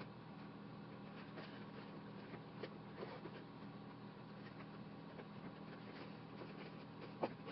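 Faint rustling of a cloth cap being handled and thread drawn through it during hand-stitching, with a few small clicks, the sharpest near the end, over a steady low room hum.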